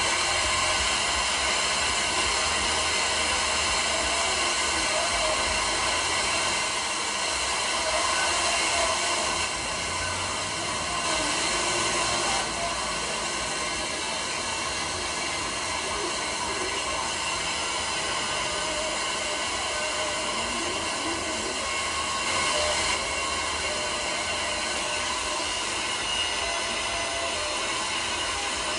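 Car FM radio tuned to a distant station, Tucson's 92.1 KFMA, received by FM skip: a steady rush of static hiss with faint, wavering station audio underneath, the sign of a weak long-distance signal.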